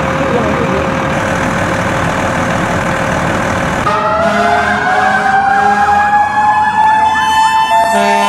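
For the first four seconds, steady engine noise at a crash scene. Then a fire engine responding with its sirens: one wail slowly rising in pitch, a faster wavering electronic siren over it, and a low steady horn sounding twice.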